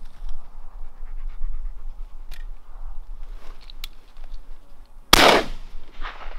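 A 20-gauge over-and-under shotgun fires once at a passing dove about five seconds in: a single sharp blast with a short decaying tail. Before it, a dog pants softly.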